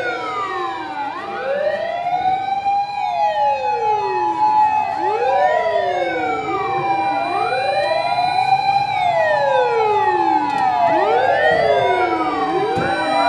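Several fire-department emergency vehicles' sirens sounding at once, each sweeping its pitch repeatedly, so that falling and rising wails overlap over a steady held tone.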